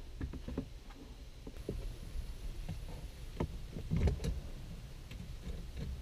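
Plastic dashboard trim being handled and pressed into place: scattered light clicks and a duller knock about four seconds in, over a low steady rumble.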